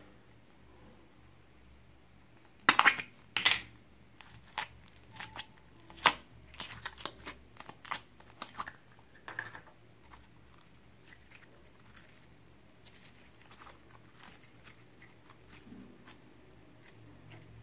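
Sticky slime being scooped and pulled out of a thin plastic tub by hand, with the tub flexing: a run of crackling, crinkling clicks, loudest about three seconds in, thinning to faint scattered ticks over the last several seconds.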